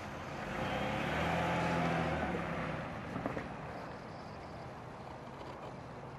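Minivan engine and tyres as it drives past and turns into a driveway, loudest about a second or two in, then fading as the van pulls away and slows to a stop. A brief click a little after three seconds in.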